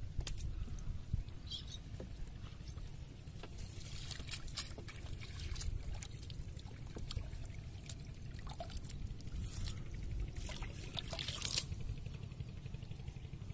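Water trickling and dripping off a wet fishing net as it is pulled by hand out of a pond, with small splashes and clicks from the net, over a low steady rumble.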